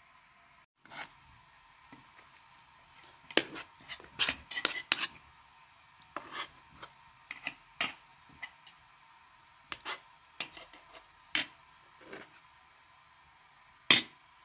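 Metal spoon clinking and scraping against a metal plate while scooping stew onto flatbread: a scattered string of sharp clinks with short scrapes, the loudest clink near the end.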